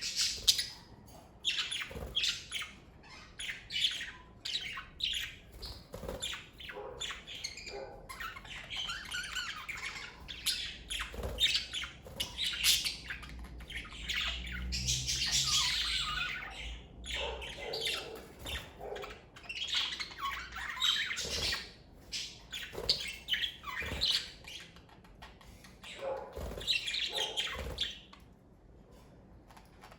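A group of pet budgerigars (Australian parakeets) chirping and squawking in many short, overlapping calls, busiest around the middle and dying down near the end.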